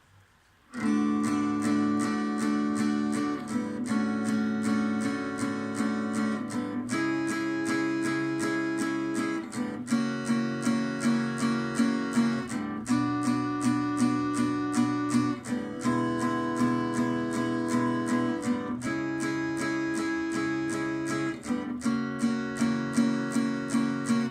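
Acoustic guitar strumming chords as an instrumental song intro, starting just under a second in and changing chord every few seconds.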